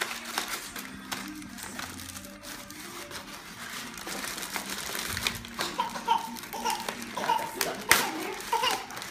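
Wrapping paper and bubble wrap rustling and crinkling as a present is unwrapped by hand, with laughter and a high voice in the background over music, the voice coming in about halfway.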